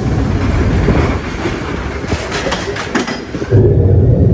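Theme-park ride vehicle clattering along its rail track, with a heavier low rumble setting in about three and a half seconds in.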